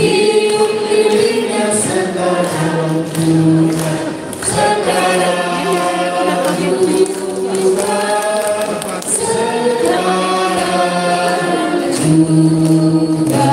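A group of women singing a song together in long held notes.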